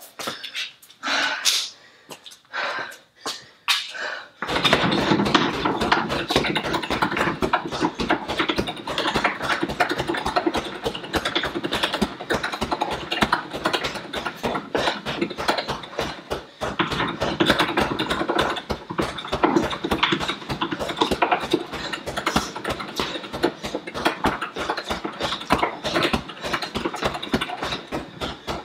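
Straight punches with boxing gloves landing on a hanging heavy punching bag in a fast, steady stream of thuds, starting about four and a half seconds in after a few scattered knocks.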